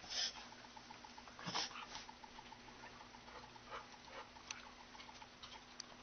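A corgi's short, faint nasal snorts and sniffs at irregular intervals, part of a reverse-sneezing attack.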